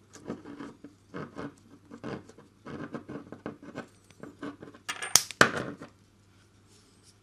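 Small plastic and metal parts of an RC helicopter rotor head clicking and rubbing as they are handled and fitted by hand, with two sharp, louder clicks about five seconds in. Then it goes quiet.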